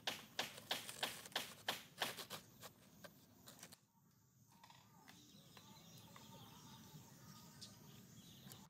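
A hand tool striking in a quick, even rhythm, about three strikes a second, stopping about three seconds in. After a break comes a faint steady outdoor background.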